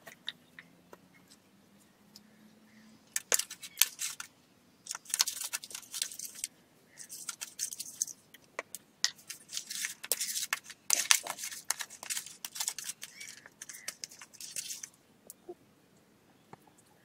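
Hands rubbing salt and turmeric into pieces of raw fish in an aluminium plate: irregular bursts of rasping, scrubbing noise from about three seconds in, with scattered light clicks against the metal plate.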